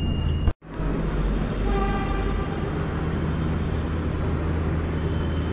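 Metro train door warning beeps, a few short high tones, cut off about half a second in. Then the steady low hum of the metro train standing at the platform, with a brief pitched tone about two seconds in.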